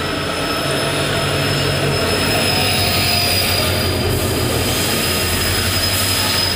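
Passenger train rolling past, a locomotive followed by its coaches: a steady, loud rumble of wheels on the rails, with a thin high whine running through it.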